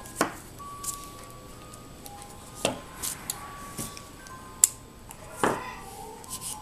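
Plastic wiring plugs being handled and fitted, making several sharp clicks and clacks spread through the stretch, one louder snap a little after the middle, while the wiper motor stays silent and does not run. Faint background music of short held notes runs underneath.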